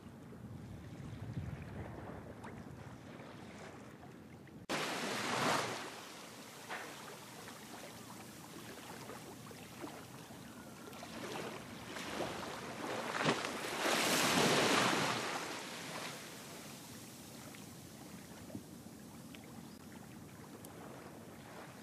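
Waterfront ambience: a steady low rumble with two louder rushing surges, one starting suddenly about five seconds in and another around fourteen seconds, plus a few faint knocks.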